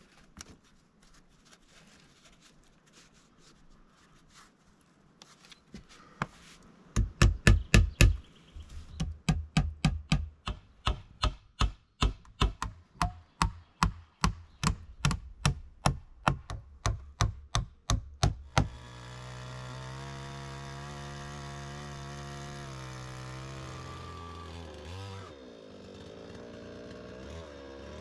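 Faint scratching of moss being pushed into gaps between logs, then a run of hammer blows on wood, about two to three a second. Near the end the hammering stops abruptly and a chainsaw engine runs steadily, its pitch dipping and rising.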